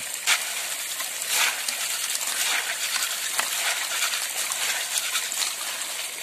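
Small snail shells clicking and rattling against each other and the metal pan as hands scrub them with salt. Underneath is the steady hiss of water pouring from a pipe onto the ground.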